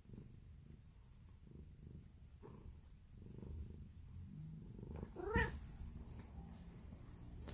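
Domestic cat purring steadily, with one short meow that rises and falls in pitch about five seconds in.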